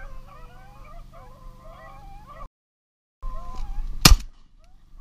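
Many birds calling at once in overlapping, wavering, honking calls. The calls break off abruptly, resume, and are cut by a single loud shotgun shot about four seconds in.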